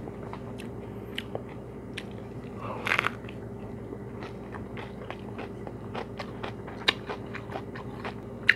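Close-miked biting and chewing of a lettuce wrap filled with rice vermicelli and roast pork: crisp lettuce crunches and wet mouth clicks at an irregular pace, one louder crunch about three seconds in.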